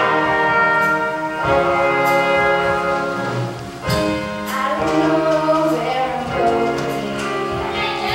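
Live band with a horn section of trumpets, trombone and saxophone playing a series of long, loud held chords, changing chord about a second and a half in and again near four seconds.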